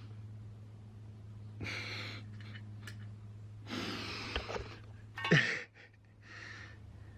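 A man's breathy exhales and sighs, four in all, with a short falling grunt about five seconds in that is the loudest sound, over a steady low hum.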